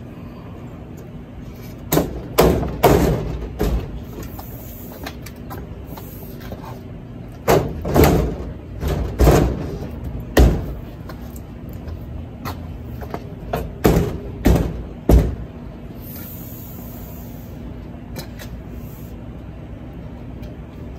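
Irregular hollow thumps and bangs, about a dozen in clusters, as a concession window frame is pushed and knocked into its opening in an enclosed trailer's sheet-metal wall.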